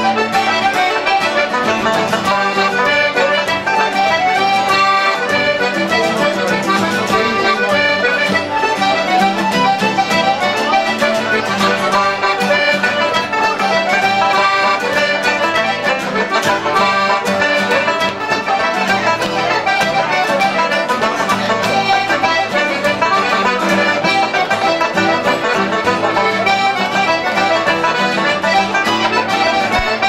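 Button accordions and a banjo playing a traditional tune together, the accordion melody carrying over the strummed and plucked banjo.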